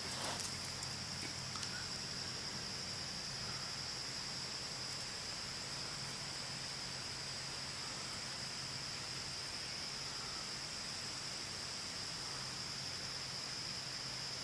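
Outdoor ambience dominated by a steady, high-pitched insect chorus that holds one even pitch throughout, with a faint low hum underneath.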